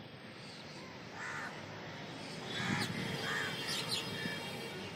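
Crows cawing a few times over steady background noise.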